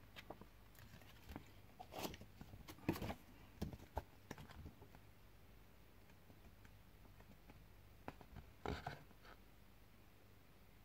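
Faint handling of a paper booklet and cardboard packaging: scattered soft rustles and taps in the first five seconds, then quiet, then one more short rustle near the end.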